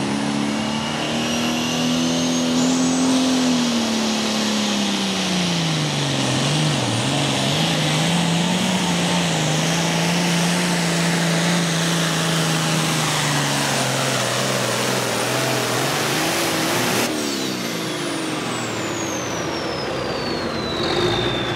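Super pro farm pulling tractor's diesel engine running hard at full throttle under load. Its pitch drops a few seconds in and then holds steady. About 17 seconds in the engine cuts off and a high whistle winds down.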